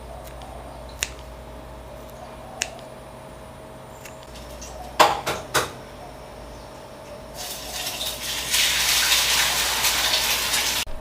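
Kitchen sounds: a few light clicks, then a brief clatter of dishes or utensils about halfway. A steady rush of water, like a tap running, builds and is loudest near the end, then cuts off abruptly.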